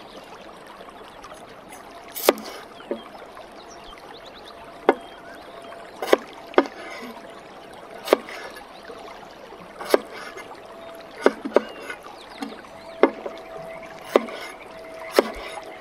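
A large kitchen knife slices through a raw potato and knocks down onto a wooden cutting board, about a dozen sharp knocks spaced a second or two apart.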